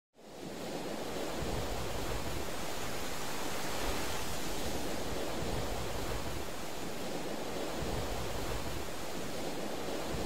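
A steady rushing noise without pitch or beat, fading in at the start and holding level throughout.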